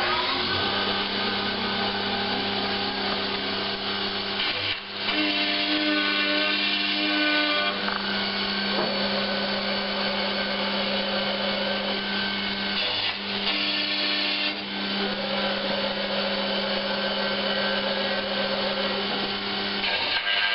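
Horizontal CNC milling machine (Racer CHX6000) running a cut in metal: a steady spindle hum and cutter whine over a dense cutting hiss, with the pitch of the whine shifting a few times. The table is feeding at about 60 inches per minute.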